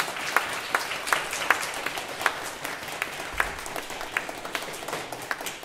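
Applause from a small crowd, with one person's claps close by and louder, keeping a steady beat of about two and a half claps a second.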